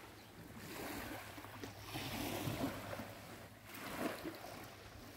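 Small lake waves lapping against a rocky, pebbly shore, the wash swelling and fading every second or two.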